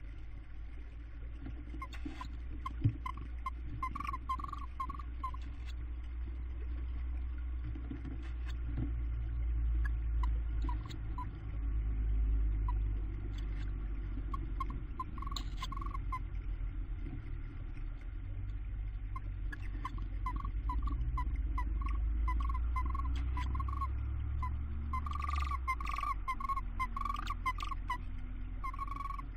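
Tawny owls in a nest box giving runs of quick, closely spaced chittering calls: a short run a few seconds in, another midway, and a longer stretch through the last third. Underneath is a steady low hum, with occasional small scratchy clicks.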